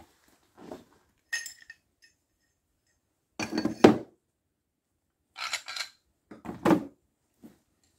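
Metal adapter discs and cups of a wheel bearing press kit clinking and clattering as they are set back into their plastic carrying case, in several separate clatters, the loudest about four seconds in.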